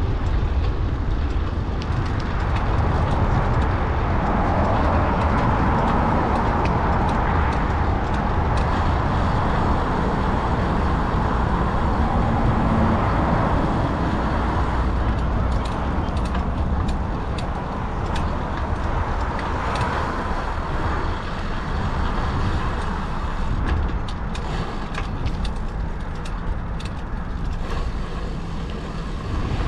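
Wind rumbling on a GoPro's microphone as the bicycle rolls along a city road, with road traffic noise swelling and fading alongside. Scattered light clicks and rattles come in the second half.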